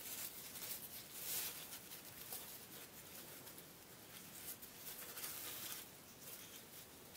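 Faint rustling and handling of ribbons as a bow is arranged and pressed into place, with brief louder stretches of rustle about a second in and again near five to six seconds.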